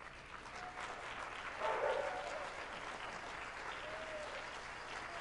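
Audience applauding. The clapping swells to its loudest about two seconds in, then holds steady.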